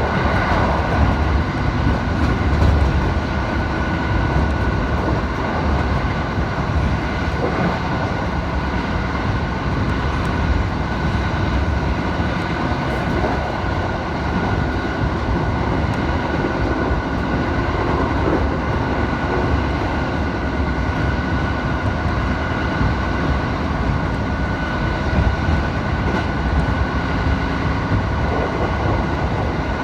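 Train running slowly, heard from inside the passenger car: a steady rumble of wheels on rail with a constant thin hum over it.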